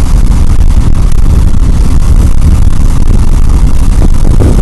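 Loud, steady low rumble of a car driving, heard from inside the cabin.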